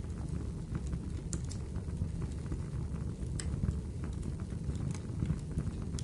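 Fireplace fire crackling: a steady low rumble of flames with scattered sharp snaps, the clearest about three and a half seconds in.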